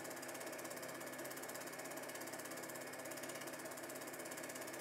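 Super 8 film projector running, its claw and three-blade rotating shutter making a steady, rapid, even mechanical clatter with a faint motor hum, at about 16.66 frames per second.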